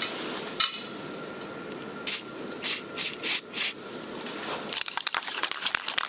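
Aerosol spray-paint can: a clink, then a few short hissing sprays, then from near the end the can is shaken hard, its mixing ball rattling rapidly.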